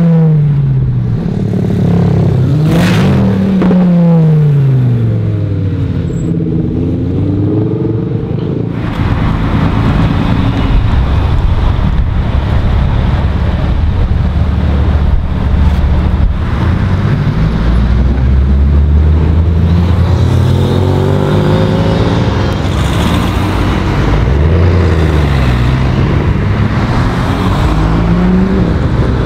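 Supercar engines revving and accelerating one after another, the pitch rising and falling through the gears: a Lamborghini Huracán Performante's naturally aspirated V10 first, then an Ultima GTR, and near the end a first-generation Ford GT's supercharged V8.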